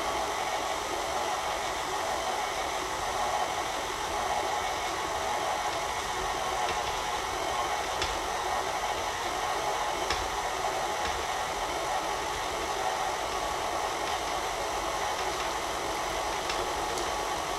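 Tilt-head stand mixer running steadily on low speed, its beater working a thick butter and powdered-sugar frosting in a metal bowl.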